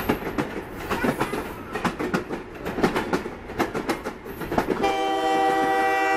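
Train wheels clicking unevenly over rail joints as the cars roll along. About five seconds in, the leading ALCO C-424 diesel's Nathan K3LA five-chime horn sounds one long, steady chord.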